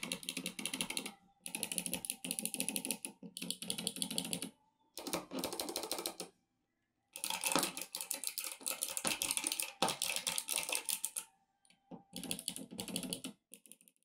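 Typing on a split ortholinear mechanical keyboard with Kailh × NovelKeys Box Thick Click switches. The rapid, sharp clicks come in bursts of one to four seconds with short pauses between, the longest burst in the middle.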